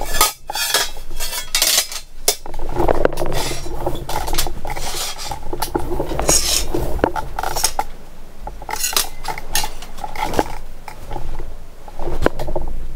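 Painted steel frame rails and a plate from a Toro MX5000 mower being shifted and set down on a steel welding table, giving repeated clanks, clinks and scrapes of metal on metal.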